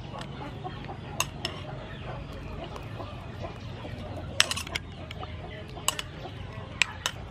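Metal spoon clinking sharply against a ceramic bowl several times while sauce is stirred in it, with chickens clucking in the background.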